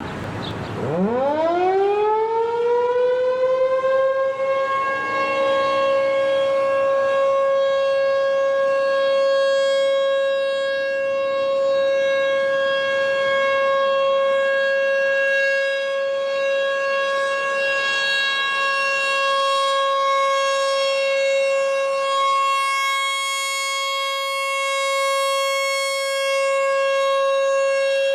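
A civil defence siren starts up, its single tone rising from low pitch over about four seconds, then holds a steady high tone at full volume.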